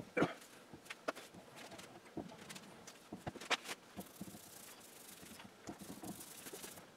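A knock of oak boards being handled right at the start and a few light clicks, then a faint hissing rustle of a small foam roller spreading wood glue along a board's edge.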